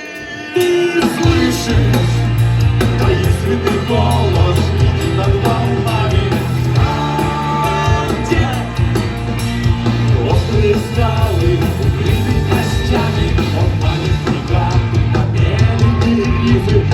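Live rock band playing loud, with heavy bass and drums; the full band comes back in about half a second in after a brief drop.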